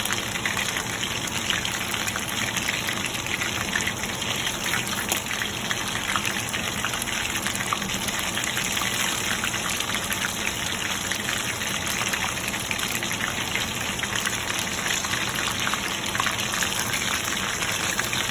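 Chicken lollipops shallow-frying in hot oil: a steady sizzle dotted with fine, rapid crackles and pops.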